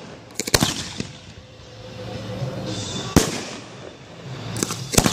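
Aerial firework shells bursting overhead: a quick cluster of bangs about half a second in, the loudest single bang around three seconds in, and two more bangs near the end.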